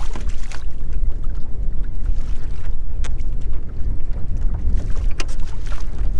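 Strong wind buffeting the microphone as a deep, steady rumble, with choppy water lapping against a kayak hull and a few sharp knocks.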